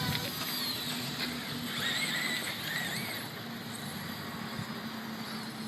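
Hubsan mini quadcopter's motors whining, the pitch wavering up and down as the throttle works against strong gusts, over a steady rush of wind noise.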